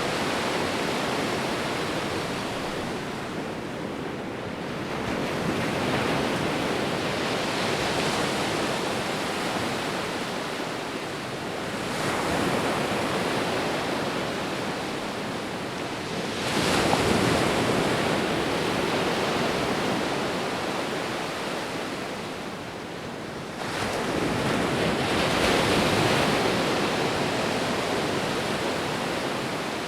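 Ocean waves breaking and washing on a beach, a steady rush of surf that swells with a new breaker about every five to seven seconds.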